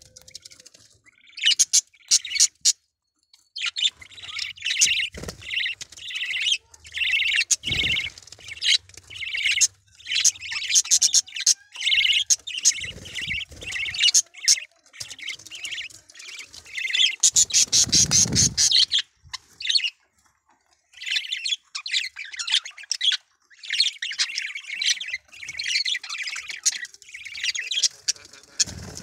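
Budgerigar chattering: rapid runs of high chirps and scratchy warbles that break off briefly a couple of times, with a few dull bumps underneath.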